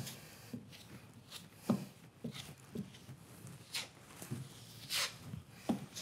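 Steel broad knife scraping and spreading joint compound over tape on a plasterboard wall: irregular short scrapes and light taps, with one longer, louder swipe about five seconds in.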